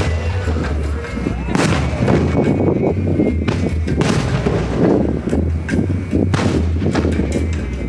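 Fireworks bursting: three sharp bangs about two and a half seconds apart, with dense crackling between them, over background music.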